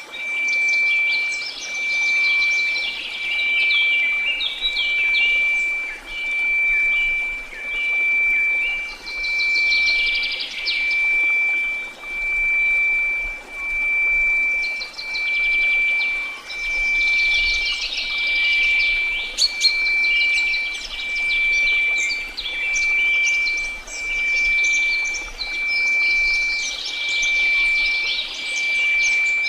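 A steady 2334 Hz sine tone over faint white noise, the whole swelling and fading in a slow pulse roughly every two seconds, with birdsong chirping over it.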